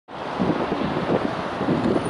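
Wind buffeting the microphone over a steady rumble of city traffic.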